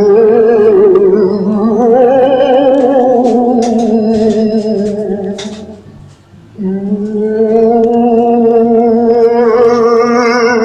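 An eerie wavering voice, sung or wailed, holding two long notes with a short break about six seconds in. A few faint high clicks sound during the first note.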